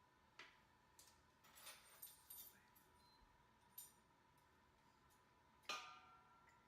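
Faint clicks and clinks of kitchen utensils against a bowl, scattered, with a small cluster about two seconds in and a louder clink near the end that rings briefly.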